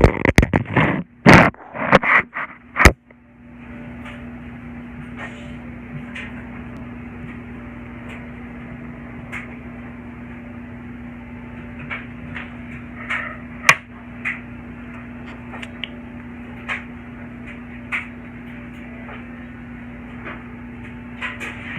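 Several loud knocks and clatters in the first three seconds, then a steady low electrical hum of room tone with scattered faint clicks and taps.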